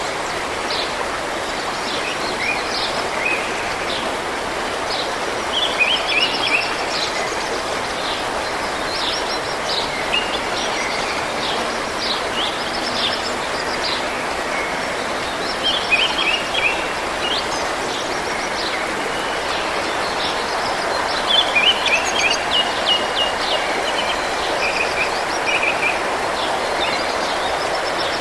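Forest stream running steadily with songbirds singing over it in short repeated chirps and trills, the birdsong loudest about six seconds in, around sixteen seconds, and again a little past twenty seconds.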